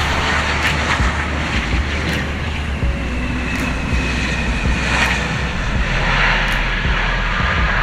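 Bombardier CRJ-700 regional jet's turbofan engines running on landing, a steady jet rush with a whine that falls slowly in pitch, over a low buffeting rumble of wind on the microphone.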